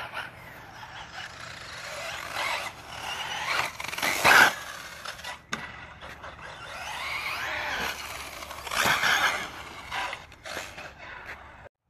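1/8-scale radio-controlled car driven hard on a dirt track, its motor rising and falling in pitch as it speeds up and slows. It is loudest about four seconds in and again around nine seconds in.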